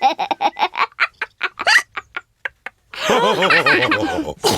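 Cartoon characters laughing in quick bursts that thin out into short separate chuckles, then a fresh round of laughter starts about three seconds in.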